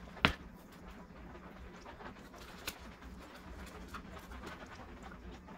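Soft handling noises as raw canned cinnamon roll dough is pulled apart and set into a metal baking pan, with a sharp click soon after the start and a lighter click about two and a half seconds in.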